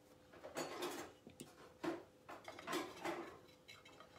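Faint, scattered light knocks and scrapes as objects are handled on a table, including a small ceramic truck being lifted.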